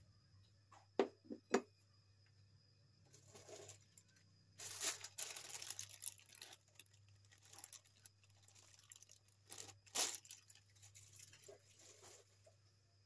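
Kitchen handling noises: three sharp clicks, then several stretches of rustling and crinkling with a louder crack partway through, as of food or packaging being handled.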